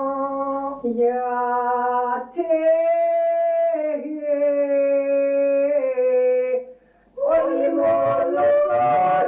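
Ukrainian folk song from the Poltava region sung by voices holding long, drawn-out notes that shift in pitch from phrase to phrase. A short break about seven seconds in, then the next phrase begins.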